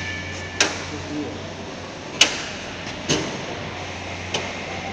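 Sharp metallic clicks and knocks from hands and hardware working on a steel switchgear cubicle, four in a few seconds with the loudest about two seconds in, over a steady low hum.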